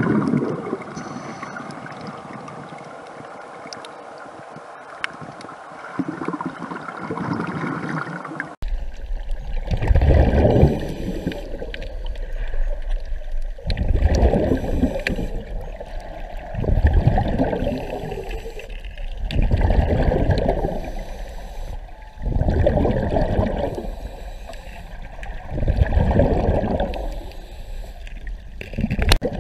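Underwater sound of a scuba diver breathing: exhaled bubbles gurgle out of the regulator in loud surges about every three seconds, after a steadier stretch of water noise that breaks off at an edit about eight seconds in.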